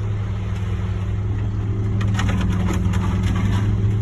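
A heavy truck engine runs steadily at one pitch. A cluster of short clicks and rattles comes about two seconds in.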